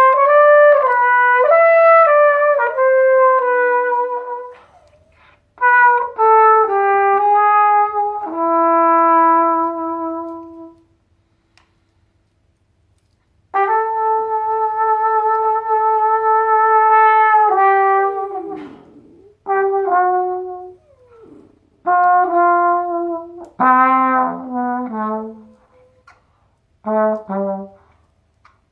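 Trumpet improvising slow blues phrases: held notes and short runs separated by pauses, with a long held note in the middle that ends in a falling slide.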